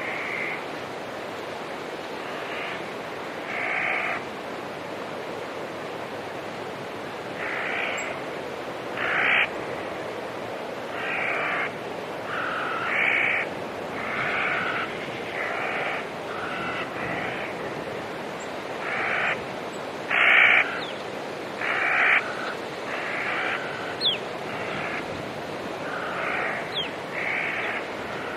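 Birds giving short harsh calls over and over, often about one a second, over a steady rushing background, with a few thin, quick high chirps in the second half.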